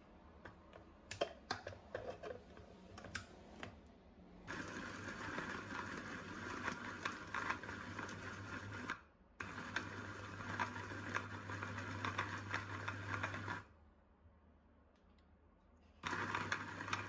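Bosch 750 W hand blender with its chopper attachment chopping pitted dates at medium speed. A few clicks come as the motor unit is fitted onto the bowl lid, then the motor runs in three bursts with short pauses, the last starting near the end.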